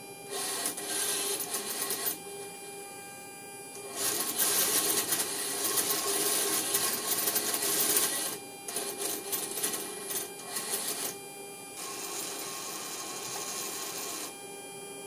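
Compass-card servo motor and gear train of a Collins 331A-8K horizontal situation indicator whirring as the card slews round fast and stops, in four runs of about two to four seconds each. A steady hum runs underneath.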